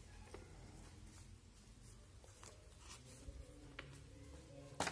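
Faint rustling and light crinkling of a folded paper airplane being turned over in the hands, with a few small clicks and one sharper, louder snap of paper just before the end.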